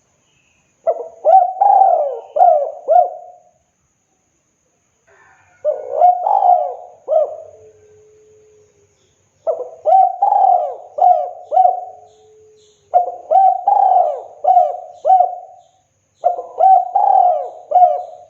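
Spotted dove cooing: five phrases of several quick, low hooting notes, each phrase lasting about two to three seconds with short pauses between them, the last one running on past the end.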